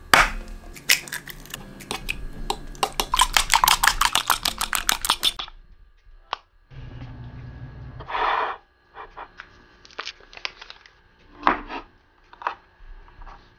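A fork beating eggs in a wooden bowl: a sharp knock, then rapid, even tapping of about eight strokes a second that stops abruptly about halfway through. Scattered light clicks and a short swish of kitchen handling follow.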